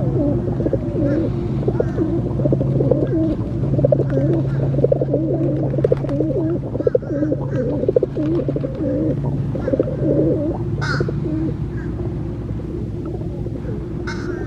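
Pigeons cooing in a long run of rolling, warbling coos that fade after about ten seconds, over a steady low hum.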